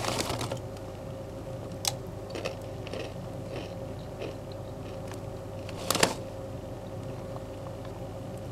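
Crisp Doritos tortilla chips being bitten and chewed, with the foil bag crinkling at the start and one loud sharp crunch about six seconds in. A faint steady hum runs underneath.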